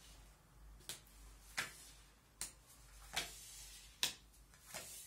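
Playing cards dealt one at a time onto a wooden tabletop. Each card lands with a light tap, six taps evenly spaced a little under a second apart.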